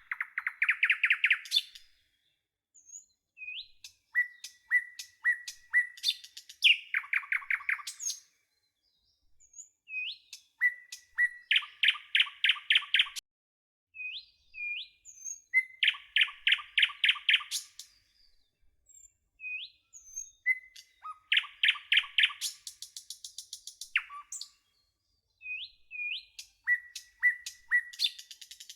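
Birdsong: a single bird repeating one song phrase of a few short rising chirps followed by a fast trill, about every four to five seconds.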